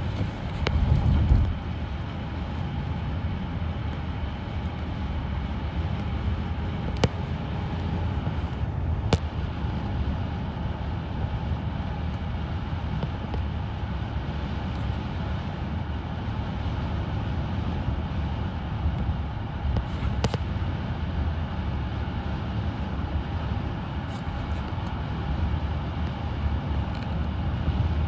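Steady road and engine noise from a car on the move, heaviest in the low rumble, with a short louder swell about a second in and a few faint clicks.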